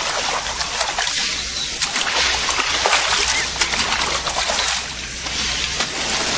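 Water splashing and sloshing, a steady busy wash of small splashes.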